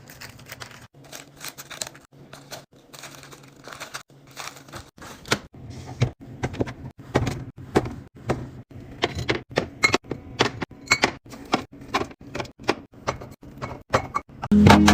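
Containers and packaging being handled and set down while a refrigerator is stocked: a quick, irregular run of small knocks, clicks and clatters that grows busier after a few seconds. Music with plucked strings comes in just before the end.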